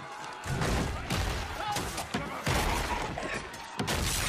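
Battle-scene soundtrack from a TV drama: a rapid series of heavy thuds and crashing impacts, with voices and music underneath.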